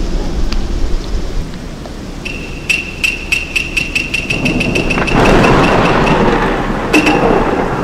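Dramatic dubbed-in sound effects. A low rumble like distant thunder is followed about two seconds in by a steady high tone with rapid ticking at about five a second. A loud swell of rushing noise like rain comes in about five seconds in.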